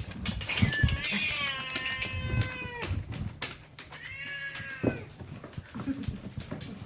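Cat meowing twice: one long, drawn-out meow that drops in pitch at its end, then a shorter one, with scattered small clicks and knocks around them.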